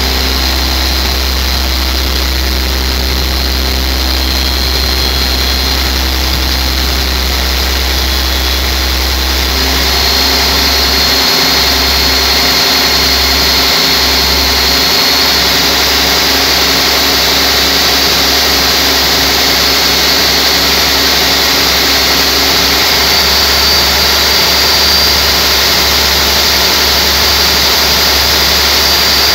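Large turbocharged diesel engine running steadily at around 1,300 to 1,400 rpm, with a thin high whine over the engine noise. It gets a little louder about ten seconds in.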